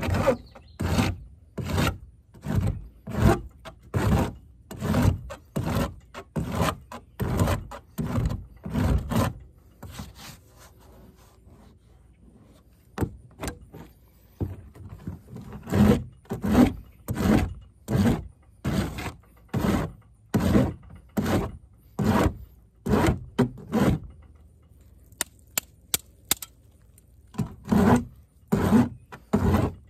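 Hand rasp scraping across a hardened plastic weld patch on a kayak hull, grinding the high spots down in quick, light strokes, about three every two seconds. The strokes stop for a few seconds about a third of the way in, and again near the end, where a few light clicks are heard before the rasping starts again.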